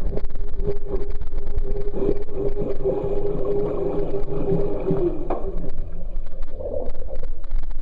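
Old Brastemp Luxo washing machine running: a steady motor hum with many rattling clicks, the hum dipping slightly in pitch and fading about five seconds in.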